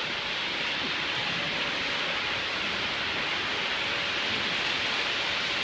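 Steady, even rushing water noise in an indoor swimming pool as a swimmer swims lengths, with no distinct individual splashes.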